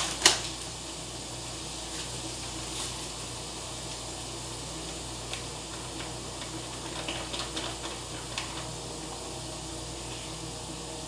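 Browned ground beef sizzling steadily in a frying pan, with a sharp click near the start and a few faint ticks later.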